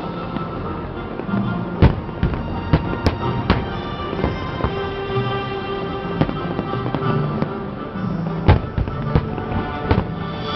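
Fireworks going off in irregular sharp bangs, about a dozen, with the loudest near two seconds and eight and a half seconds in, over background music.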